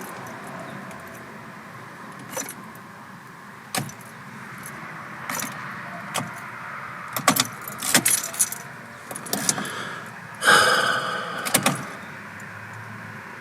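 Car keys jangling and clicks and knocks from handling the controls inside a car, with a louder rattling burst about ten and a half seconds in. The engine does not start; the Easytronic gearbox's N is blinking.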